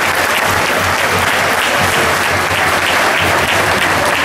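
Crowd applauding, the clapping pulsing in a fairly steady beat.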